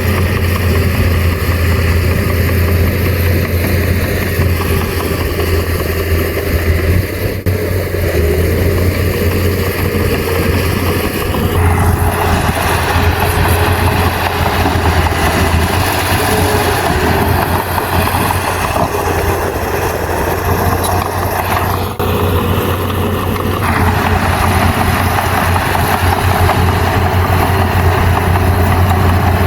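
Komatsu bulldozer's diesel engine running continuously with a steady low drone. From about twelve seconds in until about twenty-four seconds the engine sound turns fuller and harsher, then settles back.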